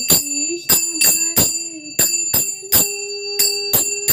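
Puja hand bell rung with quick, uneven strokes, about two to three a second, each stroke ringing on in clear high tones.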